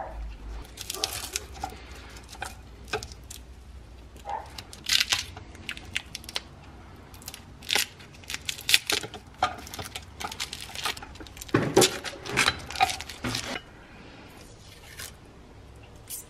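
Masking tape and paper being peeled and torn off a freshly painted cast-iron charcoal iron, a run of short irregular ripping and crinkling sounds that dies down near the end.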